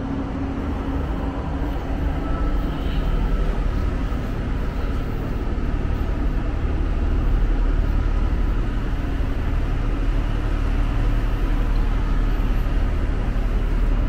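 Steady low drone of an Irish Rail 29000 Class diesel multiple unit's underfloor diesel engine, heard inside the carriage; it grows a little louder about halfway through.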